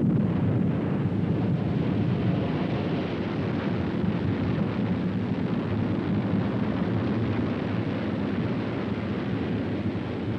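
Rocket engine firing: a steady, noisy rumble with most of its weight in the low end.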